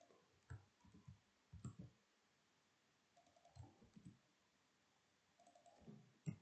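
Faint computer mouse and keyboard clicks in a few short, scattered clusters, with the sharpest click near the end.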